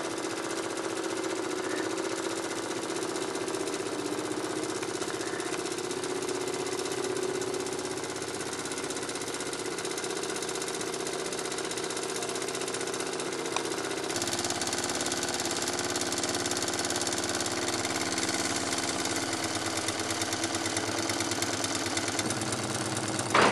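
Doll vertical toy steam engine running steadily on live steam, with a rapid, even mechanical beat. About fourteen seconds in the sound turns brighter.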